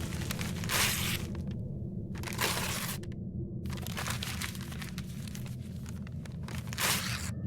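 Paper tearing, crunching and crumpling, a sound effect of book pages being chewed and eaten, with a few louder rips among the scratching. A steady low hum runs underneath.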